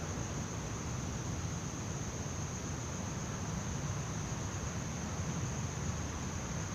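Steady background hiss with a continuous high-pitched whine or trill and a low rumble underneath; nothing else stands out.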